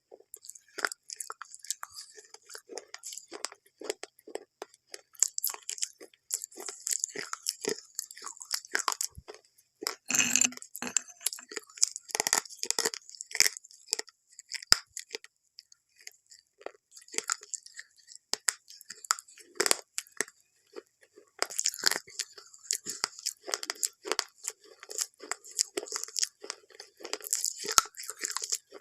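Chewing and crunching of something crisp: dense, irregular crackles, with a louder crunch about ten seconds in.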